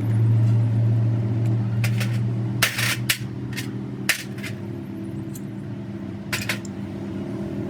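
A few sharp metallic clinks and taps, as of small metal parts or tools being handled, over a steady low hum that is stronger in the first half.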